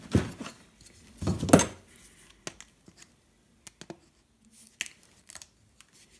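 Small hand-work sounds: two louder scraping rustles in the first two seconds, then scattered light clicks and ticks as small parts are handled.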